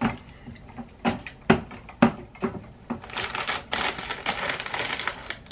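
Eating Fritos corn chips: a few separate sharp crunches over the first two and a half seconds, then a couple of seconds of dense crinkling and crackling from the chip bag.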